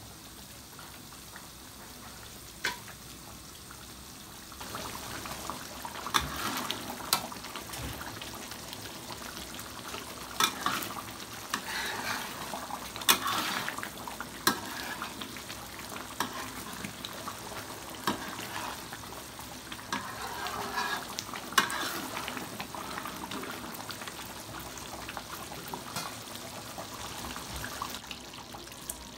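A metal spatula stirs and scrapes through thick, simmering stew sauce in a wok, clinking sharply against the pan now and then, over a steady low sizzle and bubbling. The stirring starts about four seconds in.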